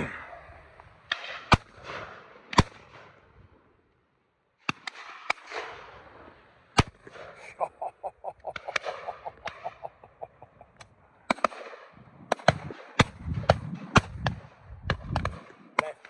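Shotguns firing at driven game birds: single shots near and far across the line of guns, then a quick run of shots in the last few seconds. Midway, a fast, even string of short calls, about five a second, sounds under the shots.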